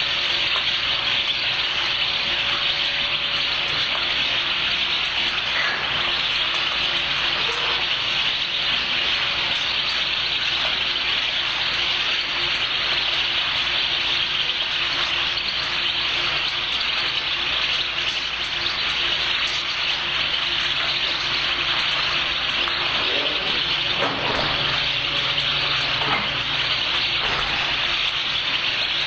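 A large mass of European goldfinches crowded into crates, all calling at once: a dense, continuous high twittering chatter that merges into an even sizzle-like hiss.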